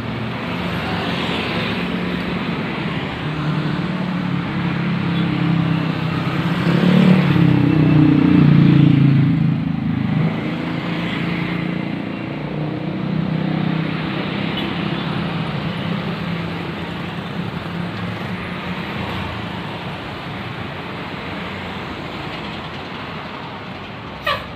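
Roadside traffic noise with a bus engine passing close, its low note swelling and bending in pitch, loudest about seven to nine seconds in. A short sharp click comes just before the end.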